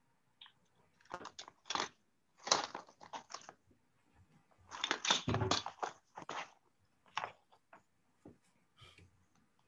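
Irregular rustling and crackling handling noise, in bursts of a second or so with short gaps and a few small ticks near the end.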